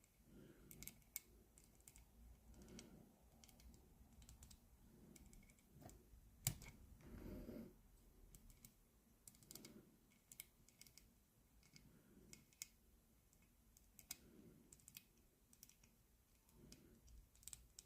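Faint, irregular clicks of the buttons on a push-button combination lock being pressed one at a time while the handle is held under tension, with one sharper click about six and a half seconds in. Each press is a test for the button that binds: the next digit of the code.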